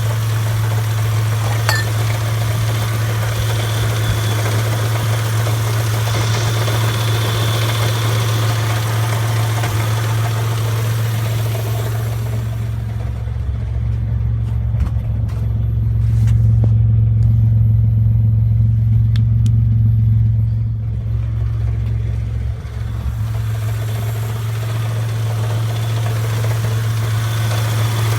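Car engine idling with a steady low hum and a knock the owner suspects is rod knock. The engine has new big-end bearings and a reground crank, and its timing belt's hydraulic tensioner has collapsed, though the owner doubts the tensioner is the cause. About halfway through, the sound turns duller and deeper for several seconds.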